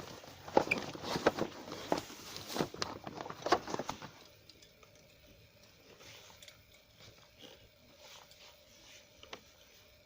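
Fishing gear being handled: a rapid, irregular run of clicks and knocks for about four seconds, then only faint occasional clicks.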